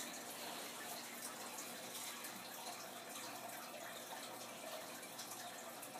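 Faint, steady hiss-like background noise with no distinct events.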